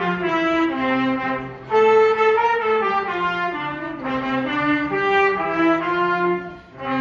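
Two trumpets with saxophone and cello playing a slow melody in held notes, the phrase breaking off briefly near the end before the next one starts.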